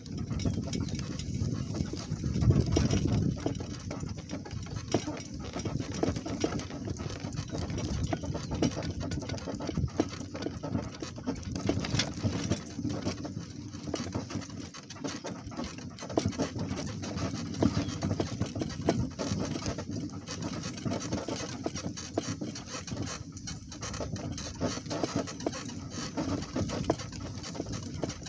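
A donkey walking along a farm lane while carrying its rider: a steady rumble and rattle with many small clicks from hooves and tack.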